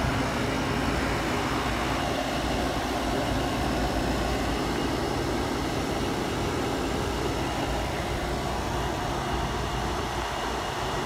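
Small hermetic refrigeration compressor running with a steady hum, started on a makeshift start capacitor and relay kit that stands in for its burned-up start components; it is drawing about 5 amps against a 7-amp maximum running load.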